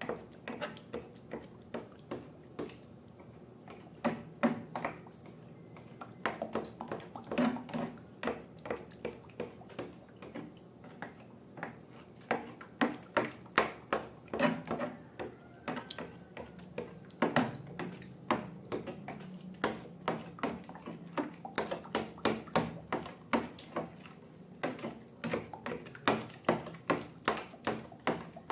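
Slime being squeezed and handled: an irregular run of sharp wet clicks and pops, sparse at first and coming several a second in the second half.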